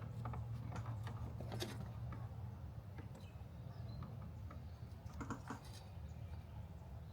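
Scattered light plastic clicks and taps, with a small cluster about five seconds in, as a Smart fortwo tailgate latch switch and its wiring connector are handled and pushed together. The connector does not seat because the new latch is a different part. A steady low hum runs underneath.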